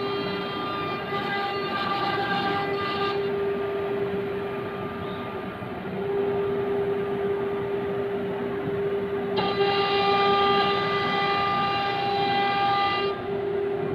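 CNC router spindle running with a steady high whine while its bit engraves grooves into a wooden door panel. A second, higher whine with many overtones joins about a second in, drops out, and comes back for the last few seconds.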